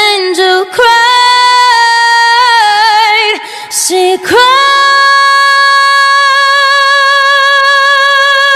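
A woman singing a cappella with no instruments, a few short phrases followed by one long held note with a slight vibrato for the second half.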